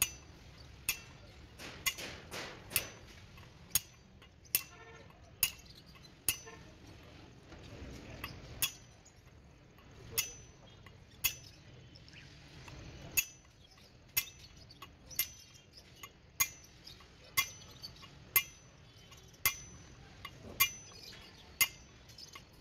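Steel bar driven down again and again onto a tapered roller bearing to seat it on a ZF gearbox main shaft: sharp metallic clinks about once a second, each with a short ring.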